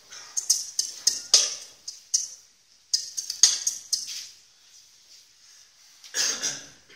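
Beatboxing into a microphone: two quick runs of sharp, hissing clicks and hi-hat-like strokes, a short pause, then one fuller, louder vocal hit near the end.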